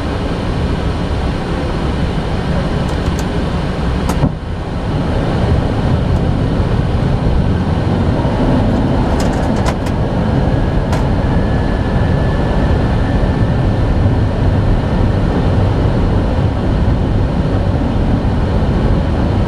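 Steady rushing cockpit noise of an Airbus A320 on approach: airflow over the flight deck and the engines. About four seconds in there is a click with a brief dip in level, and a few faint clicks follow later.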